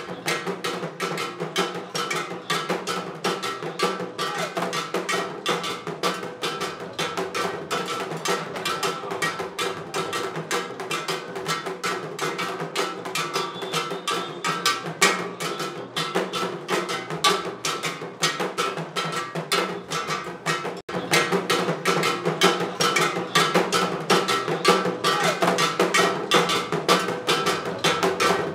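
Ensemble of carved wooden Yoruba upright drums struck with curved sticks, playing a fast, dense, continuous rhythm. A brief break comes about two-thirds of the way through, after which it goes on slightly louder.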